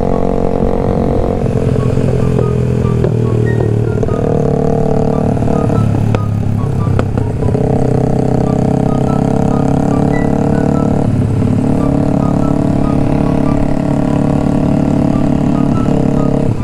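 Motorcycle riding sound from a Honda CBR150R's single-cylinder engine at a steady cruise, mixed with background music with a melody line.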